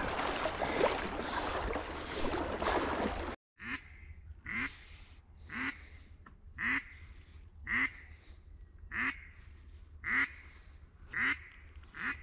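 A loud rushing noise for the first few seconds, then a steady series of duck quacks, about one a second, each a short nasal call with a slight downward glide.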